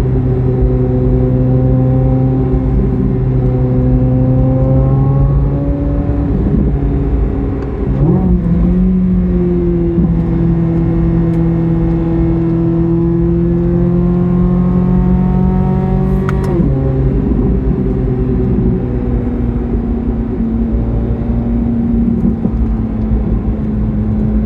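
Corvette C8 Z06's 5.5-litre flat-plane-crank V8 running under load. Its note jumps up at a gear change about eight seconds in, climbs slowly, then drops sharply at another shift around sixteen seconds.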